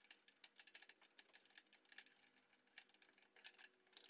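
Near silence with faint, irregular light clicks of metal parts being handled as a dust-collector mount is fastened to the lathe bed.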